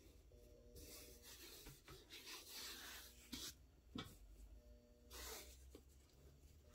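Faint rustling and rubbing of a cotton T-shirt being handled and smoothed, fabric brushing close against the microphone, with two soft ticks in the middle.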